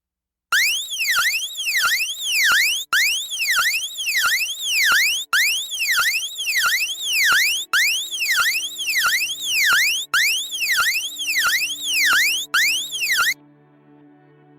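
Synthesized emergency-alert alarm sound effect: an electronic tone sweeping rapidly up and back down, about two sweeps a second, in repeated bursts of a little over two seconds with brief breaks between them. It cuts off about 13 seconds in, leaving a faint low drone.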